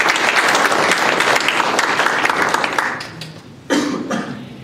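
Audience applauding at the end of a talk, dying away about three seconds in.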